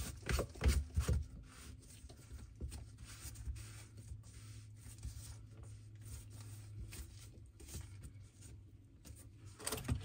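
Gloved hands handling and fitting the plastic drain elbow on a garbage disposal: a few knocks and rubbing in the first second, then soft scattered scrapes over a faint low steady hum, and one more knock near the end.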